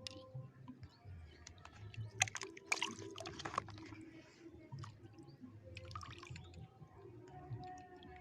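Small water splashes and drips, with a cluster of louder splashes about two to three and a half seconds in.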